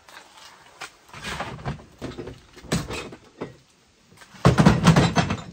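Objects being moved and handled: a string of knocks, scrapes and rustles, with the loudest clatter about four and a half seconds in.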